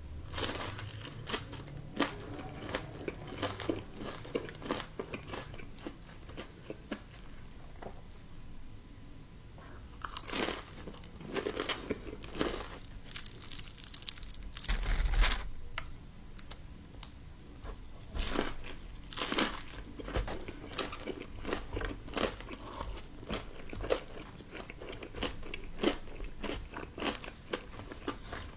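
Close-miked eating: crisp bites into breaded fried chicken and chewing, with crackling crunches in clusters and pauses between them.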